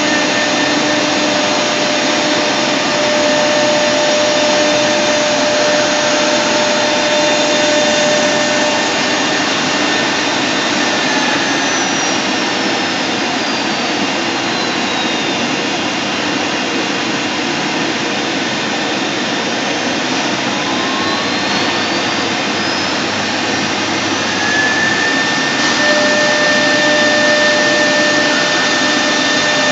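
Multi-spindle CNC router running while cutting a board: a steady, loud machine hiss with a high spindle whine. About eleven seconds in, a whine falls in pitch as a spindle slows down, and about twenty seconds in, another whine rises as a spindle speeds up again.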